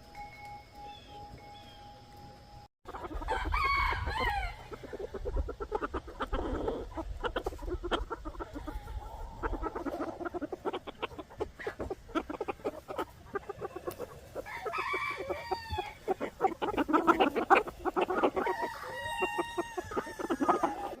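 Chickens clucking and a rooster crowing, starting abruptly about three seconds in and loudest near the end.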